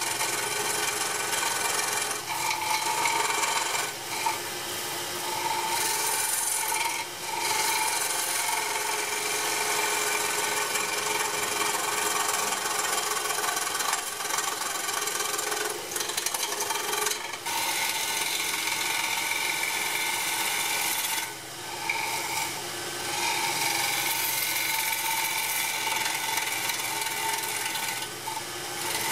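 A turning tool cutting the spinning end face of a pear-wood vase on a wood lathe: a steady scraping hiss of the cut, with the lathe's faint steady hum under it. The cut breaks off briefly a few times, about two, four, seven, seventeen, twenty-one and twenty-eight seconds in.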